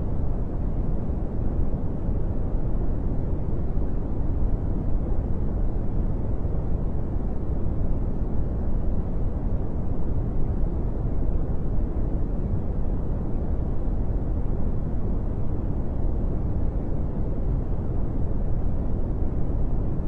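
Brown noise: a steady, deep rushing hiss, strongest in the bass and dull in the highs, with no changes or events.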